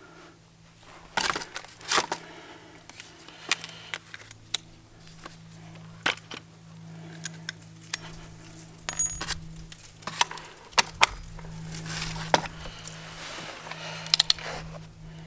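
Irregular metallic clinks and clicks, with a little scraping, as a torque wrench and socket are worked on the blade bolt of a lawn mower, under a faint steady low hum.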